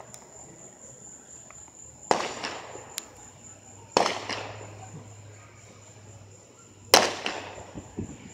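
Aerial fireworks bursting: three sharp bangs about 2, 4 and 7 seconds in, each trailing off over about a second, the last the loudest.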